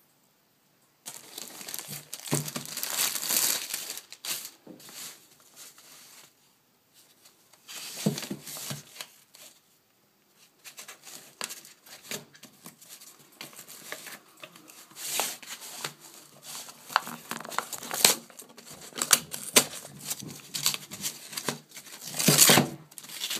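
Plastic mail bag and paper packaging being handled, crinkling and tearing in irregular bursts as a package is unwrapped by hand, with a short pause about ten seconds in.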